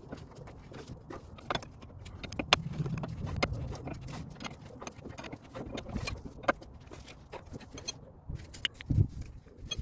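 Hand tools clinking and knocking against car suspension parts: irregular light metallic clicks, with a few louder knocks, the loudest about two and a half seconds in and near the end.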